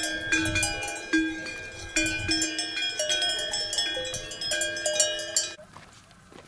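Several bells of different pitches on grazing livestock, clanking irregularly as the animals move; the ringing stops abruptly near the end.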